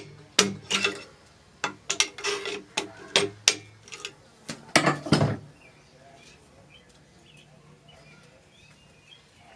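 A quick series of sharp metal clanks and knocks from tools and engine parts being handled, the biggest about five seconds in. After that only a faint steady hum remains.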